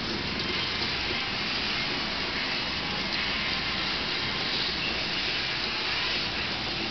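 Heavy rain pouring down steadily, a continuous even hiss.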